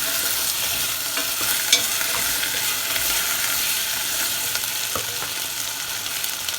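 Okra sizzling steadily as it is sautéed in oil and butter with onion in a pan, being stirred, with a few sharp clicks of a utensil against the pan, the loudest about two seconds in.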